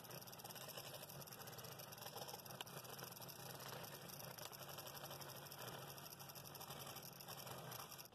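Scroll saw running steadily, its thin reciprocating blade cutting through a wooden workpiece, a faint, even buzz.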